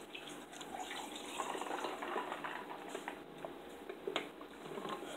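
Faint drinking from a plastic cup: sips and swallows, with a few light clicks.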